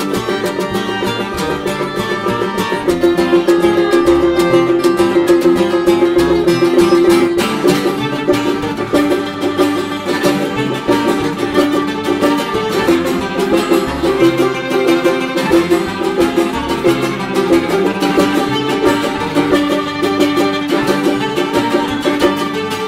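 Instrumental acoustic folk music: fast-picked acoustic strings playing a dense run of notes over a held drone note that swells about three seconds in and keeps returning.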